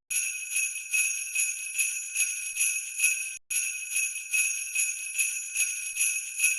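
Jingle bells shaken in a steady rhythm, about three shakes a second, played twice with a short break in between.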